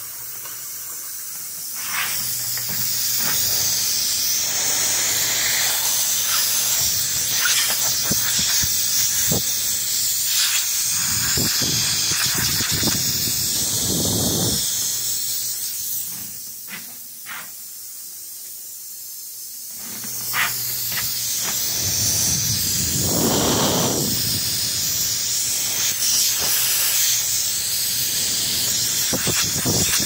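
Air hissing steadily out of the puncture hole in a pressurised car tyre, dropping out for a few seconds about halfway through and then returning. Clicks and rustles of handling mix in.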